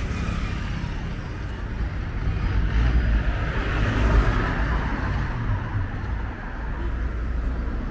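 Street traffic: engines running and tyres on the road, with one vehicle passing close that swells louder about three to four seconds in and then fades.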